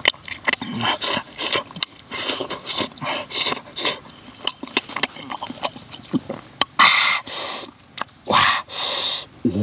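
Close-up mouth sounds of a man eating cooked eel by hand: many short wet lip smacks and chewing clicks, with a few louder hissing sounds near the end. A steady high insect drone runs behind.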